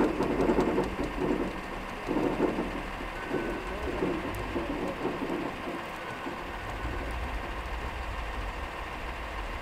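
Utility line truck's winch pulling a pull line through a long underground conduit under heavy strain, with the truck's engine running steadily. The machine sound is louder and uneven for the first few seconds, then settles into a steady hum.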